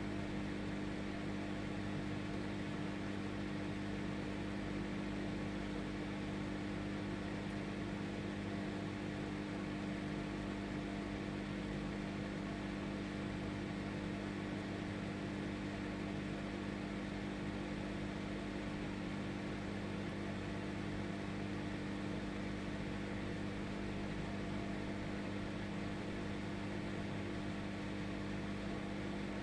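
Microwave oven running: a steady, even hum over a constant fan whir, unchanging throughout.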